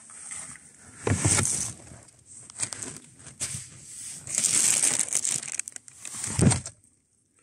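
Thin plastic bags rustling and crinkling as a hand rummages through them, in irregular bursts, loudest about a second in, around four to five seconds in and at six and a half seconds. The sound cuts off suddenly shortly before the end.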